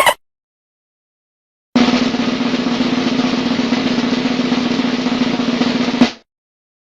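Snare drum roll lasting about four seconds, ending with a single sharp hit.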